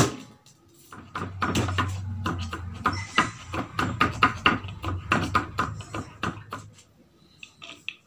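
Large kitchen knife mincing garlic on a wooden stump chopping block: a quick, steady run of knocks of the blade on the wood, several a second, after one hard thump at the start, stopping about a second before the end, followed by a few faint ticks as the garlic is scraped off the blade.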